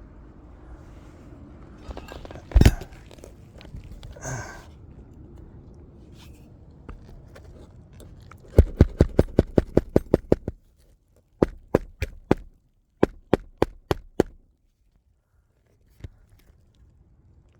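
Hand hammer driving roofing nails into an asphalt shingle: one hard blow, then a quick run of about ten strikes, about five a second, followed by several shorter groups of strikes.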